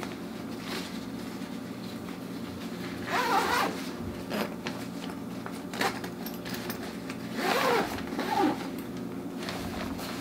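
Zipper on a black fabric film-changing dark bag being pulled shut in two strokes, one about three seconds in and a longer one about seven and a half seconds in, closing the bag's double zipper so no light gets in, with a few small clicks of handling between them.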